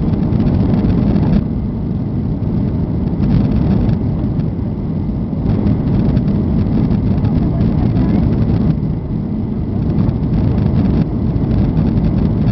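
Steady engine and airflow noise of a jet airliner heard from inside the passenger cabin, mostly low rumble, on the descent for landing with the flaps out.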